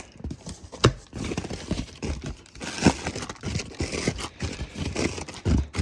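Chainsaw packaging being handled and pulled open by hand: irregular crinkling and scraping, with a sharp knock about a second in and another near three seconds.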